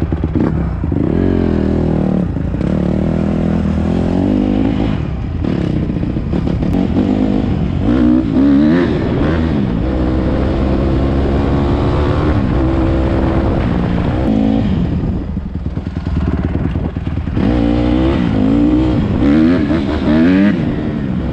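Honda CRF150RB dirt bike's 150cc four-stroke single-cylinder engine under way: it revs up and drops back again and again as the rider shifts through the gears. It eases off for a couple of seconds about two-thirds through, then accelerates hard again near the end.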